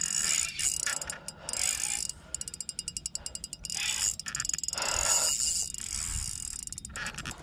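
Shimano Twin Power 4000 spinning reel ticking in fast, even runs of clicks while a hooked asp is played on the line.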